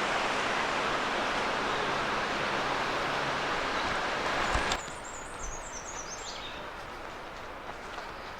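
Steady rushing of the Lehigh River's water, which cuts off abruptly about halfway through, leaving quieter outdoor background. A bird then sings one short high phrase that steps down in pitch.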